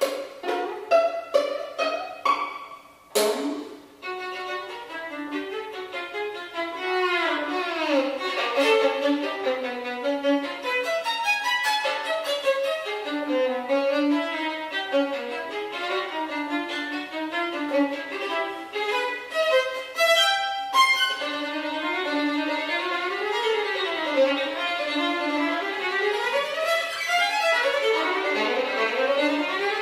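Solo violin playing a fast, atonal contemporary passage. Short separated notes open it, then a sharp accented stroke about three seconds in. Rapid bowed runs follow, with sliding glissandos, and there is a brief break with another sharp stroke about twenty seconds in.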